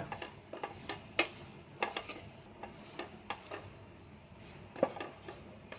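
A spatula knocking and scraping against a non-stick pan while stirring chicken keema with peas as it is cooked down dry: irregular short taps, a few a second, with one louder knock near the end.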